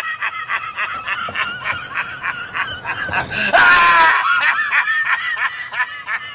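A man laughing loudly and mockingly: a fast, high-pitched run of short "ha-ha" pulses, rising to a louder, shrill peak about three and a half seconds in before the cackling carries on.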